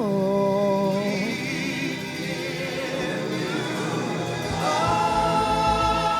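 Live gospel worship singing: a lead vocalist holds a long note on "all" over keyboard and bass, and a new held vocal chord from the singers comes in near the end.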